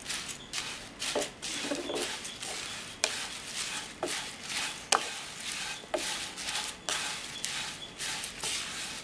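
Matta rice flakes (aval) being dry-roasted in a hot nonstick pan and stirred with a wooden spatula: a rhythmic scraping rustle of the dry flakes. Several sharp clicks about a second apart come through the middle, as the spatula knocks the pan.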